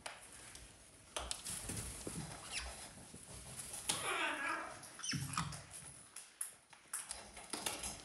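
Pet parrots scrabbling about on perches and toys: scattered taps and clicks, with one short squawk about four seconds in.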